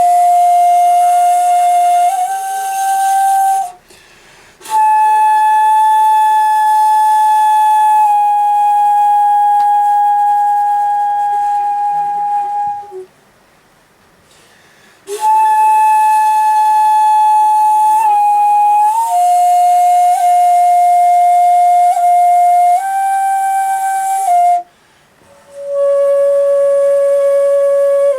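Solo shakuhachi bamboo flute played in komuso style: long held, breathy notes that shift in small pitch steps, broken by pauses for breath about four seconds in, for a couple of seconds around the middle, and near the end.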